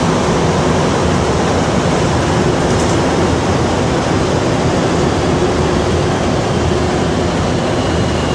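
MR-73 rubber-tyred metro car running through the tunnel: a loud, steady rushing noise with a faint high-pitched, jet-engine-like whine.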